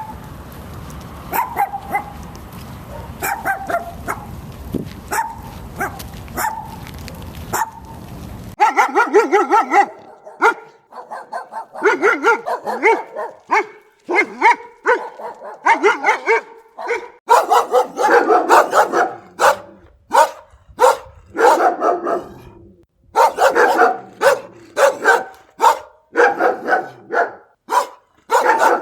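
Mixed-breed dog barking over and over in short, sharp barks. For the first eight seconds or so the barks are fainter over a steady hiss; after that they come loud and clear in quick runs.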